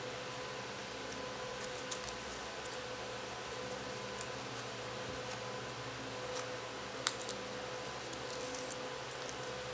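Sheet of origami paper being folded and creased by hand: scattered faint crinkles and small snaps, the sharpest about seven seconds in, over a steady background hiss and hum.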